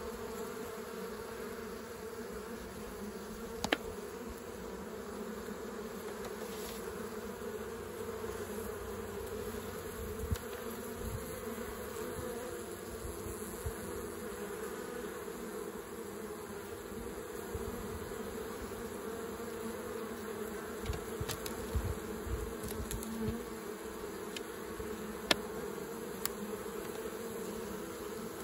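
Honey bees humming at a busy hive entrance as foragers fly in and out with pollen, a steady buzz with a few short sharp clicks.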